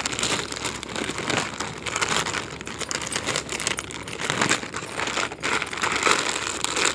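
A clear plastic garment packet crinkling as it is handled, a dense run of crackles and rustles.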